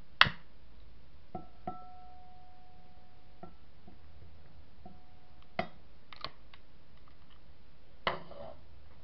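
A series of sharp clicks and taps, the first the loudest. Two of them are followed by a short, steady ringing tone, and near the end a click runs into a brief scratchy rush.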